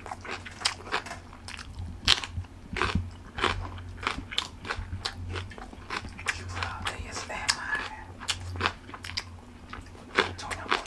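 Close-up chewing of raw Cheongyang chili peppers: irregular crisp crunches as they are bitten and chewed, over a faint steady low hum.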